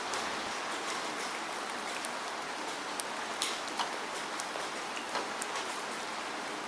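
Steady rain falling, a continuous hiss with scattered sharper drop hits at irregular moments.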